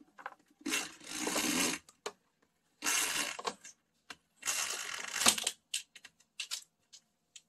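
A curtain being drawn aside along its rod: three sliding, rustling pulls about a second long each, with a few short clicks in between.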